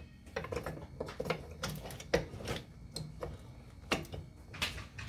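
Irregular light metallic clicks and taps from hand tools and a fuel line fitting being handled while the new fuel filter is fitted to the hard line. There are about a dozen clicks, unevenly spaced, over a low steady hum.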